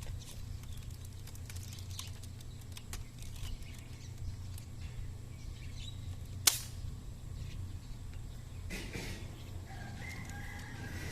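A single sharp snap from a Lego Nerf-style dart rifle shot, about six and a half seconds in, over a steady low hum.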